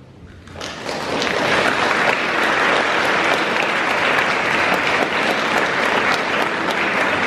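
Audience applauding: the clapping starts about half a second in, builds within a second and then holds steady.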